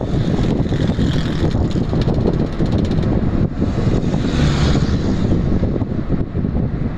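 Wind rumbling hard on the microphone over road and traffic noise, with a truck passing close by about four seconds in.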